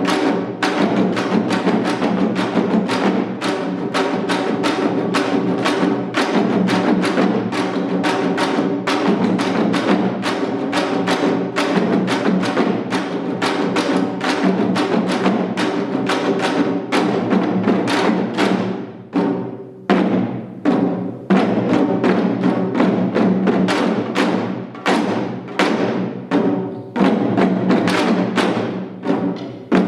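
Janggu (Korean hourglass drums) played in the seated seoljanggu style: rapid, dense strokes that, from about two-thirds of the way through, break into shorter phrases with brief pauses between them.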